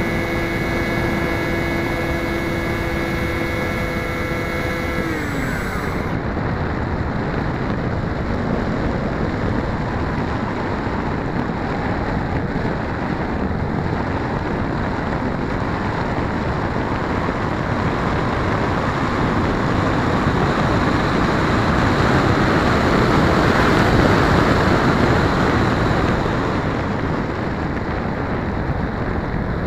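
Motor and pusher propeller of a radio-controlled plane humming at a steady pitch, then winding down and stopping about five seconds in as the power is cut. After that, wind rushes over the plane-mounted camera's microphone as it glides. The wind grows louder toward the last third, then eases off near the end.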